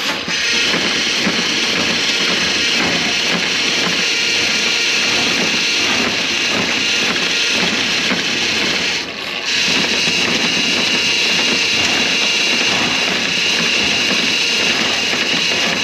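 A motorised drain-cleaning machine running, its cable auger working through a grease-clogged drain line, a steady rattling noise that dips briefly about nine seconds in.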